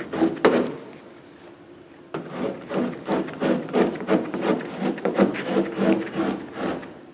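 Vinyl car decal and its transfer paper being worked by hand: rapid rubbing and scraping strokes on the paper, several a second, starting about two seconds in.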